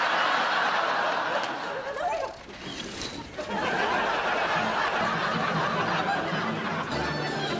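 Theatre audience laughing heavily in two swells with a short lull between them; music begins near the end.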